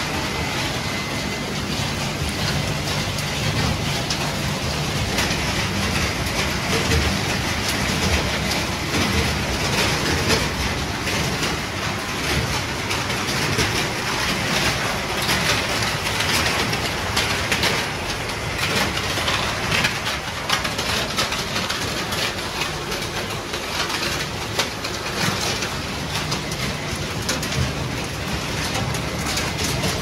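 Refrigerator-recycling plant machinery running: vibrating separators and conveyors give a steady low hum under a dense, constant rattle of shredded fragments.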